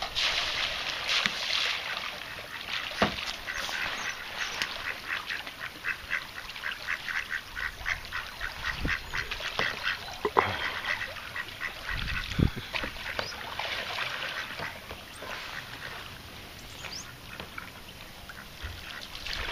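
Mallard ducks quacking in a long, quick run of quacks, about four a second.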